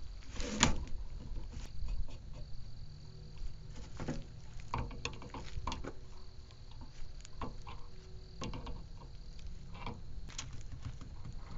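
A wrench tightening steel hydraulic adapter fittings into the ports of a hydraulic cylinder: irregular small metallic clicks and taps as the wrench is set on, turned and repositioned.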